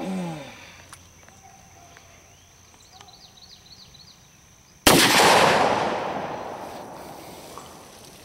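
A single shot from a Taurus 605 snub-nosed .357 Magnum revolver firing a Blazer 158-grain jacketed hollow point, about five seconds in. It is a sharp, very loud crack with a long echoing tail that dies away over about three seconds.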